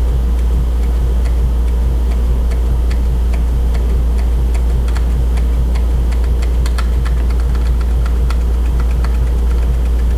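Computer keyboard keys tapped repeatedly, sharp irregular clicks a few per second, to run the debugger on from breakpoint to breakpoint. A loud steady low hum runs under the clicks.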